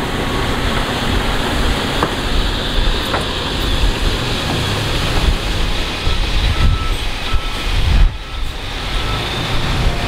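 Diesel engines of heavy earthmoving machinery (dump trucks and a bulldozer) running steadily, with two light clicks about two and three seconds in.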